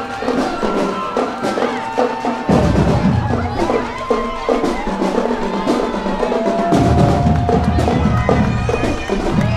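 Music with drums and percussion: held, gliding pitched notes over drum strikes and a heavy bass that drops out twice and comes back.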